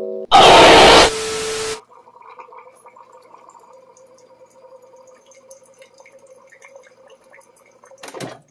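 Single-serve pod coffee maker brewing into a glass mason jar: a quiet steady pump hum with faint gurgling and dripping. It opens with a loud hiss of about a second and a half that cuts off abruptly.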